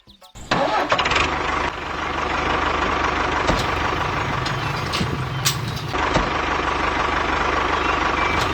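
A vehicle engine starts abruptly about half a second in, then runs steadily with a faint whine and a few scattered clicks.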